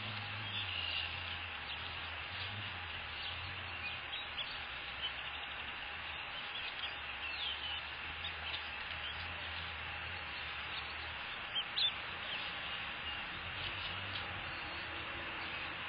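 Short, high bird chirps scattered over a steady hiss and a low hum, with a louder pair of chirps about twelve seconds in.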